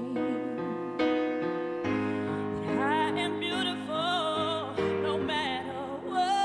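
Woman singing a slow ballad solo over piano accompaniment. Sustained piano chords are struck near the start, about a second in and just before two seconds. From about two and a half seconds in, her sung line enters with a wide vibrato.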